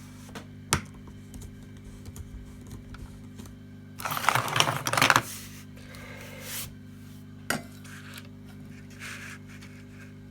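Small metal tools or parts clattering and rattling on a workbench for about a second, about 4 s in, with a few single sharp clicks before and after, over a steady electrical hum.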